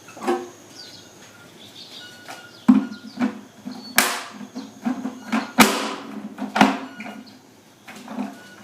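Irregular knocks and clatter of parts of a wet/dry vacuum cleaner being handled during cleaning, with two short hissing swishes about four and five and a half seconds in.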